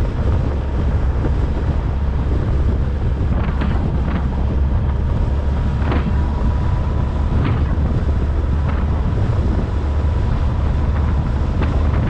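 Wind buffeting the microphone over a steady low rumble of a moving vehicle and its tyres on the road, with a few brief sharp higher sounds now and then.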